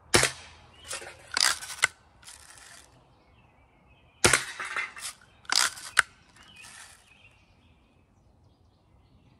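Daisy Buck 105 spring-powered BB rifle fired twice, about four seconds apart. Each sharp shot is followed by a quick run of shorter clacks and clicks, typical of the lever being worked to cock the gun again.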